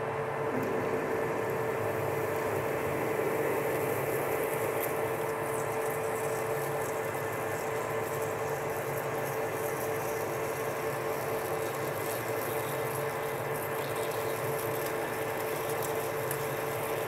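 Metal lathe running steadily at 250 RPM while a twist drill in the tailstock chuck bores the tap-drill-size hole into the end of a steel hydraulic cylinder rod. A steady hum with one constant tone.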